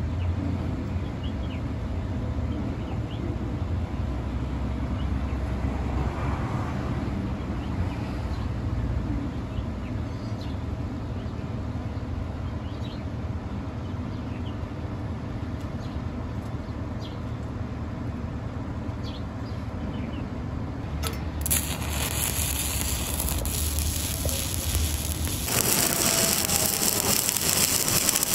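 A steady low rumble, then about three seconds before the end a stick-welding (shielded metal arc) electrode strikes its arc on steel plate and burns with a steady crackling sizzle.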